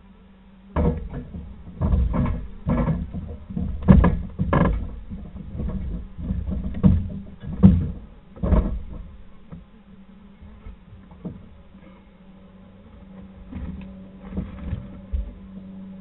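Barn owl chicks shuffling and bumping about on the nest box floor close to the camera microphone: a run of irregular knocks and scuffs over several seconds, then a few fainter ones near the end, over a steady low electrical hum.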